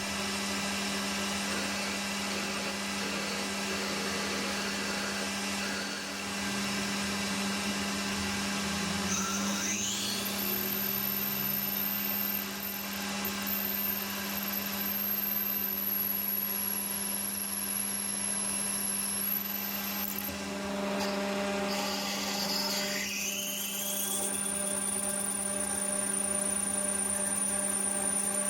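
Metal lathe running steadily with a motor hum while a hole is cut through the bore of a brass bush, with a rising whine about nine seconds in and again around twenty-three seconds.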